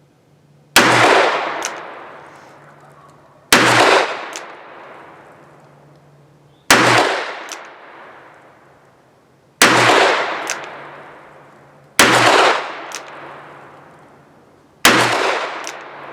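Smith & Wesson Model 686 revolver firing six shots, one about every three seconds, each loud crack followed by a long fading echo.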